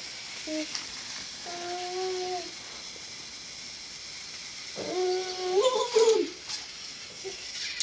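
A young boy's wordless vocal sounds. A brief call comes first, then a steady tone held for about a second. Around five to six seconds in comes a longer, wavering call, the loudest part.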